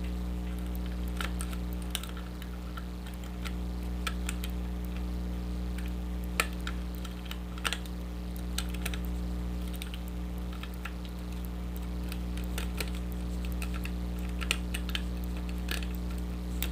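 Small irregular clicks and scrapes of a hook pick and tension wrench working the pins of a pin-tumbler lock held in a false set, over a steady low hum.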